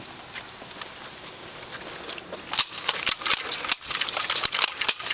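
A rapid, irregular run of sharp clicks and taps, starting about two and a half seconds in and growing louder.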